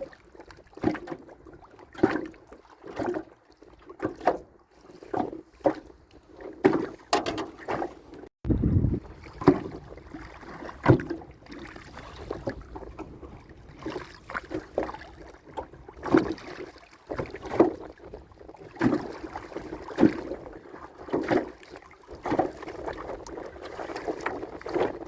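Water splashing and irregular knocks around a small boat, roughly one a second, with a heavier low splash or thump about eight seconds in.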